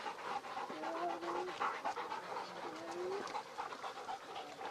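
Dog panting rapidly, in quick even breaths, with two short steady-pitched calls about two seconds apart.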